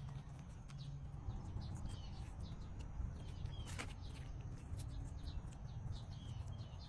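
Small birds chirping in short calls about once a second over a steady low rumble, with a single sharp click a little before four seconds in.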